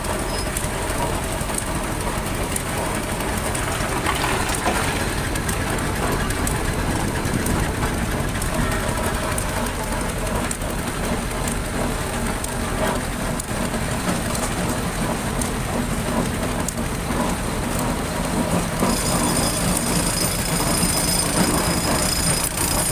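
Engine of a vintage road-construction machine running steadily with a fine rattling clatter. About nineteen seconds in, several high steady whining tones join in.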